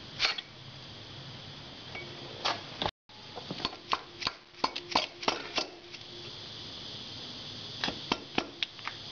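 Aluminium cylinder barrel of a Harley-Davidson Evolution Sportster 1200 being worked by hand down over the piston and onto its studs: a run of sharp metallic clicks and knocks, in two clusters, with a faint ring under some of them.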